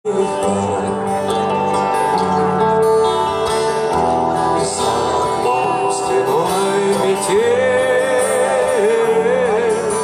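Live rock band playing through a large outdoor PA, heard from among the crowd: loud sustained chords, with a wavering lead melody coming in about seven seconds in.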